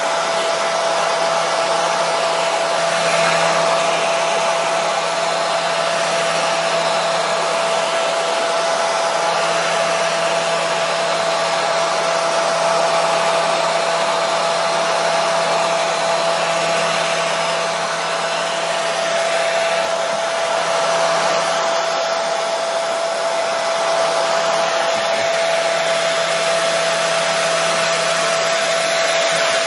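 Electric hair dryer running steadily: a constant hiss of blown air with a steady whine from the motor and fan.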